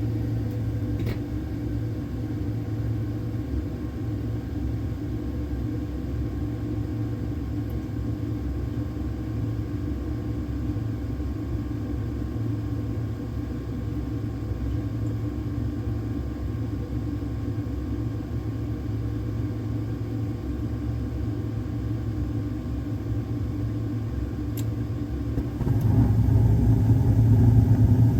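HVAC equipment running with a steady low hum and rumble. About 26 seconds in it suddenly gets louder and stays louder, as if a stage or motor kicked in.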